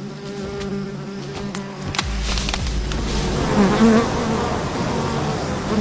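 A swarm of wasps buzzing around their nest, a steady drone. About two seconds in there is a sharp knock, after which the buzzing grows louder and busier as the nest is attacked.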